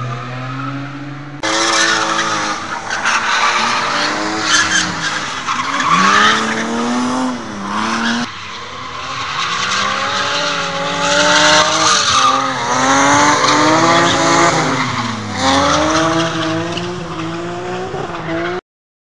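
Drift cars' engines revving hard, the pitch sweeping up and down repeatedly, with tyres squealing as the cars slide through corners. The sound jumps abruptly twice where shots are cut together, and cuts off suddenly near the end.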